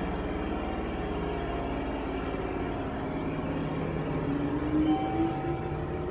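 Kintetsu electric train running in the station, a steady rumble with a tone that rises in pitch about four to five seconds in.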